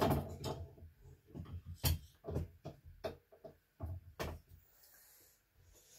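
Irregular knocks and clatter of objects being handled and set down, the loudest right at the start and about two and four seconds in.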